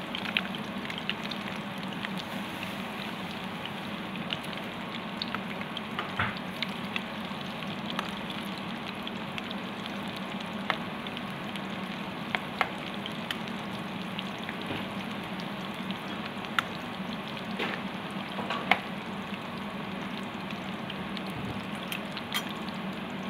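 Batter-coated cauliflower florets deep-frying in hot oil: a steady sizzle with scattered sharp pops.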